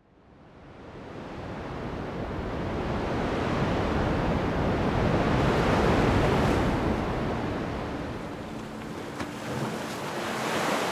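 Ocean surf: a steady wash of breaking waves that fades in from silence, swells to its loudest about halfway through, then eases off.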